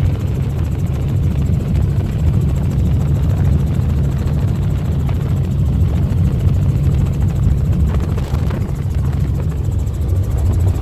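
Helicopter engine and rotor noise heard from inside the cabin in flight: a loud, steady, low drone with a fast even pulse from the rotor.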